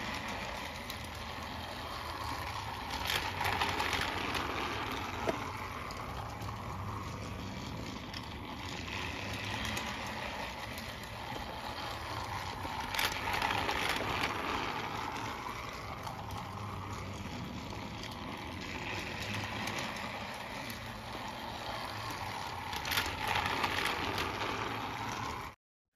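Battery-powered Mattel All Engines Go Percy toy train running laps of plastic Trackmaster track: a steady small-motor and wheel-on-track noise that swells about every ten seconds as the engine passes close by. The toy makes no talking sounds, only running noise.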